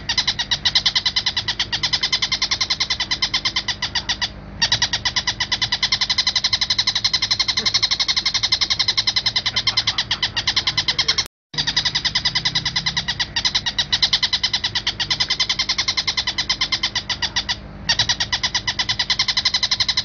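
Oriental dollarbird (tengkek buto) giving a harsh, rapid chatter: a steady stream of fast repeated notes. There is a brief pause about four seconds in and another near the end, and a short silent break about eleven seconds in, after which the same passage repeats.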